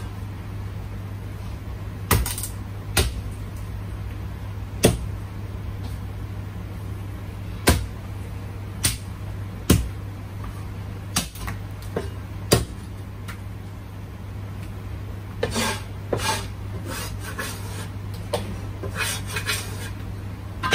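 Cleaver strikes on a wooden chopping block: sharp single chops a second or two apart, then a quicker run of lighter knocks and clatter near the end, over a steady low hum.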